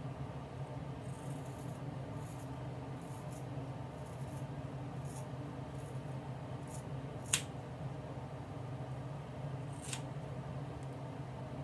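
Small hand scissors snipping through the long hair of a wig to blunt-cut the ends: a run of soft snips roughly every half second to second, then two louder, sharper snips a few seconds apart.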